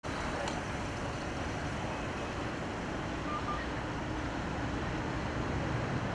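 Steady outdoor traffic noise: a constant rumble and hiss of road vehicles.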